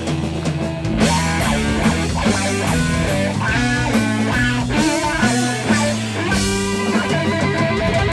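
Stoner rock band playing live: an electric guitar riff over a drum kit, with the drums and cymbals coming in hard about a second in.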